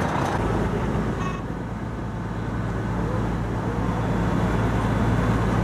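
An engine running steadily at idle, a low even hum that grows slightly louder toward the end.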